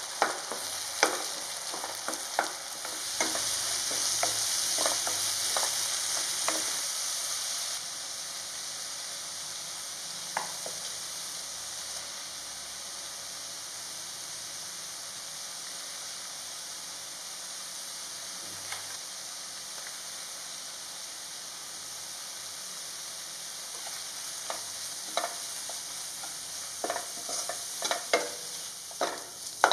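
Onions and tomato paste frying in oil in a non-stick pan with a steady sizzle, loudest a few seconds in. A spatula scrapes and taps against the pan at the start and again near the end.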